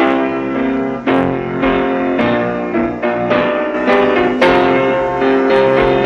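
A keyboard instrument playing a sequence of full chords, each new chord struck and held.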